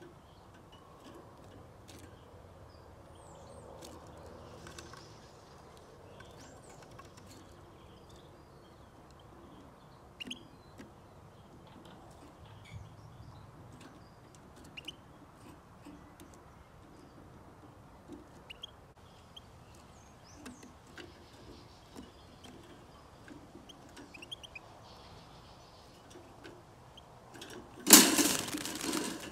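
European goldfinches giving faint short chirps, with small ticks, around a wire cage trap. Near the end, a sudden loud clatter as the trap's lid snaps shut, followed by wings flapping against the wire.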